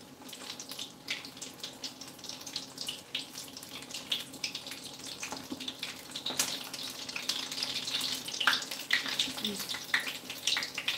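Breaded arancini (rice balls) deep-frying in hot oil in a stainless pan. The oil sizzles steadily with many small crackles and pops while the balls are turned with spatulas.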